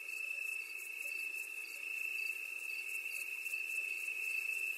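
Night insect ambience: a steady, high-pitched insect trill with faint, irregular short chirps above it and a soft hiss.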